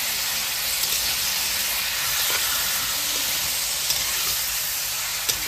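Raw mutton pieces frying in hot oil in a steel kadai, a steady sizzle, with a few light clicks of a metal spatula stirring the meat.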